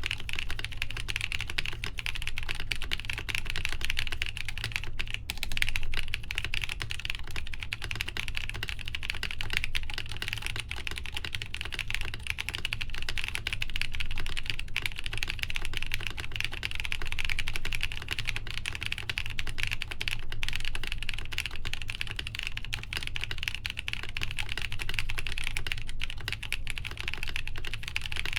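Fast, continuous typing on a BOX 75 mechanical keyboard with lubed Gazzew U4T tactile switches (Nixdork tops) on a full polycarbonate plate with no foam, under Cherry-profile PBT keycaps. The keystrokes come thick and unbroken throughout.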